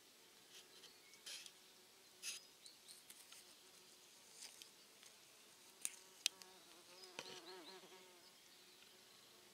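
Faint buzzing of flying insects, with one passing close about seven seconds in, its pitch wavering. Scattered light ticks are heard over it.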